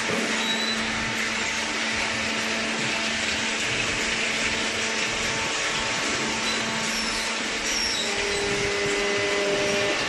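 Hydraulic cardboard baler's electric motor and pump running steadily: a constant hum under an even hiss, with a second, higher hum joining near the end.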